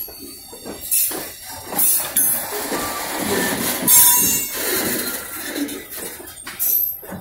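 Covered hopper cars of a freight train rolling past on curved track: steel wheels squealing against the rail in short high-pitched bursts several times, over a steady rumble with sharp knocks from the wheels.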